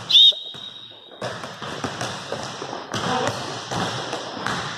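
Basketball game sounds on a hardwood gym floor: a brief, sharp high-pitched squeal right at the start that rings on faintly for about a second, then a basketball bouncing and players' footfalls as repeated thuds and taps.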